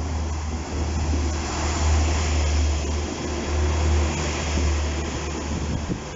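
Class 98 multi-purpose vehicle's diesel engine running as the train passes close by at speed. A loud, deep, steady rumble sits under wheel and rail noise, swelling as it goes by and easing a little near the end.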